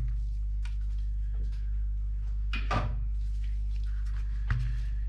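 Plastic parts of a car instrument cluster being handled: light scraping and two sharper clicks, about two and a half and four and a half seconds in, over a steady low electrical hum.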